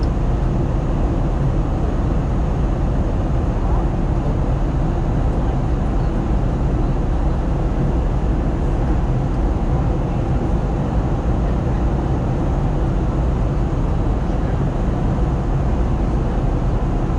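Steady cabin noise inside an Airbus A321LR airliner in flight: the even, low roar of the engines and the air rushing past the fuselage, unchanging throughout.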